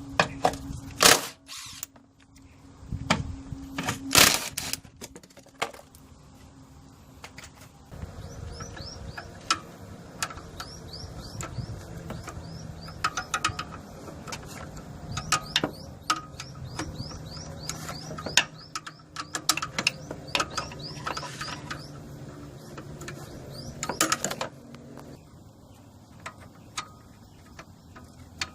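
Irregular clicks and knocks of hand tools working on metal, with a faint steady low hum underneath.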